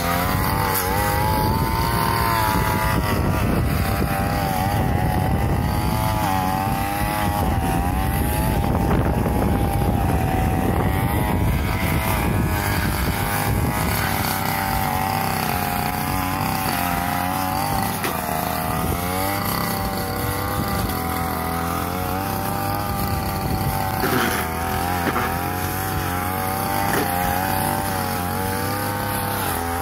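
Backpack brush cutter's small engine running at high revs while its blade cuts tall grass, the pitch wavering up and down as the load changes.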